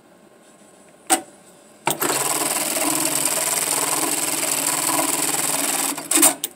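JACK industrial bar tacker stitching a box-X pattern through 1-inch webbing: a sharp clack about a second in and another just before the machine runs at a steady, even speed for about four seconds, then a quick clatter of clacks as it stops near the end.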